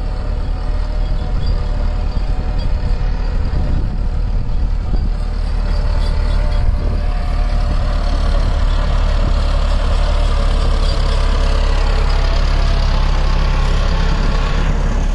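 Farm tractor's diesel engine running steadily under load while pulling a rotary tiller through a flooded, muddy field, a little louder from about two seconds in.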